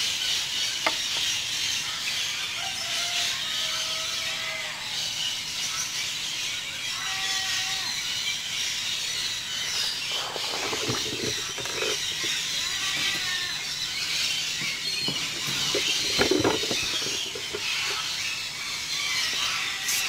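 Outdoor aviary background of many birds calling and chattering, a steady high chatter with short chirps and squeals. There are two brief louder knocks or rustles, about ten and sixteen seconds in.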